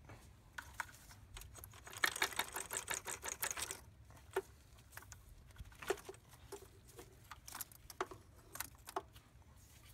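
Fuel rail and injectors being rocked and pulled out of a Jeep 4.0-liter's intake by hand, with metal and plastic clicking and rattling. A quick rattling run lasts about two seconds, and scattered single clicks and knocks follow.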